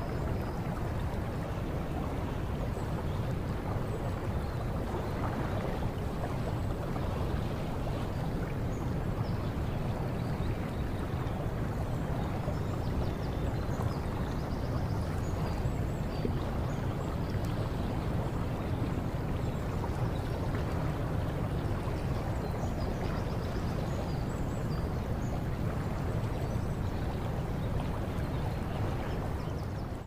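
Steady rush of flowing water, with faint high chirps scattered through it.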